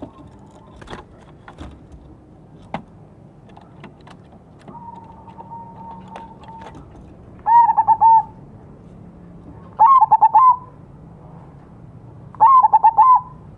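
Crossbred zebra dove (perkutut) cooing: three bouts of rapid staccato coos, a couple of seconds apart, in the second half. A few light clicks come before them.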